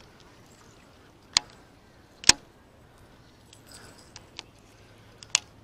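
Sharp mechanical clicks from a baitcasting reel being handled and adjusted: two loud clicks about a second apart near the start, then a few fainter irregular clicks later.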